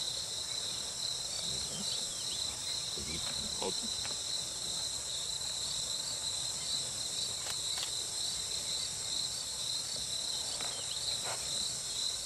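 Steady chorus of insects, such as crickets, in a continuous high trill, with a few faint brief sounds now and then.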